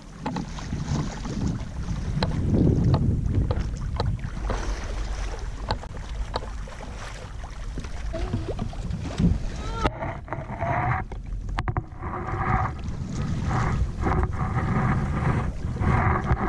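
Wind buffeting the microphone and water rushing along a sailboat's hull, a steady low rumble with occasional clicks. From about ten seconds in, short high-pitched tones come and go over it.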